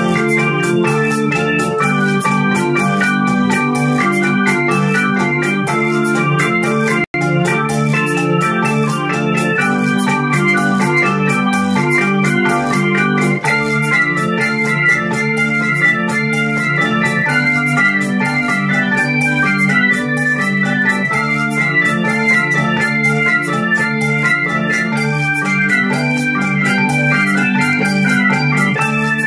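Electronic keyboard played with an organ voice: a cha-cha-cha tune of melody and chords over a fast, even ticking beat. The sound cuts out for an instant about seven seconds in.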